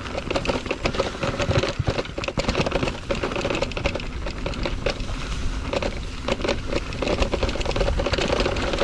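Electric mountain bike ridden over rough, wet trail: tyres on the dirt and a continuous quick clatter of chain and frame rattling, with the Bafang mid-drive motor's steady whine coming in during the second half.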